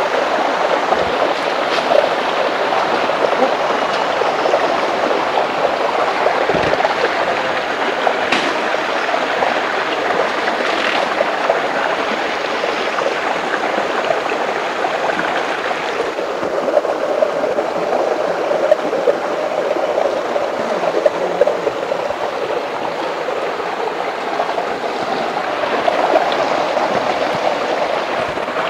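Shallow rocky stream running steadily over stones, a continuous babbling rush of water, with a couple of soft low thumps about one and six seconds in.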